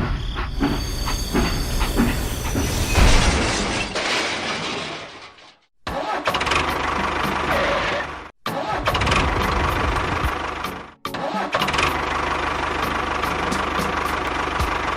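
Small motor of a model construction vehicle running, heard in several short segments with abrupt cuts between them about six, eight and a half and eleven seconds in. A fine, regular ticking runs through the later segments.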